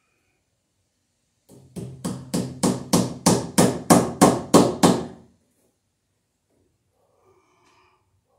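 A hammer striking a fastener into a wooden stud: about a dozen sharp blows at roughly three a second, getting louder toward the end.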